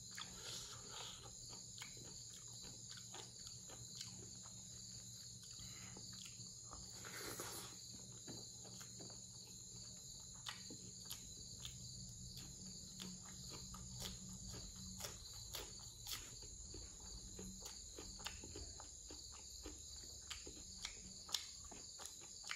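Steady high chirring of insects, with soft chewing and mouth clicks scattered over it as a man eats rice, pork and cucumber by hand.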